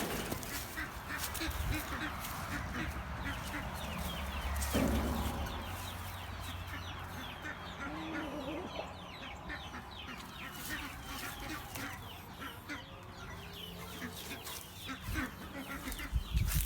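Chickens clucking, with many short high chirps throughout. A low rumble runs under the first few seconds.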